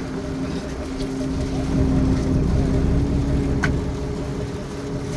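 Fishing boat's engine running steadily with a low hum, and a single sharp click about three and a half seconds in.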